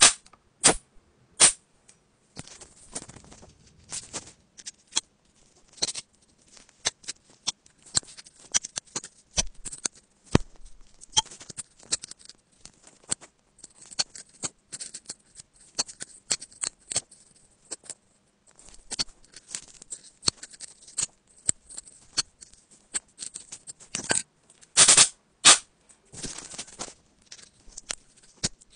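Metal pick scraping and tapping in a phone's bottom speaker grille holes, prying out packed lint and dirt: irregular short scratches and clicks, with a louder run of scrapes near the end.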